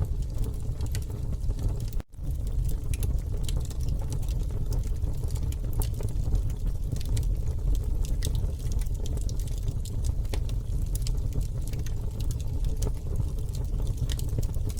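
Campfire crackling and popping with many small irregular snaps over a steady low rumble. The sound drops out for an instant about two seconds in.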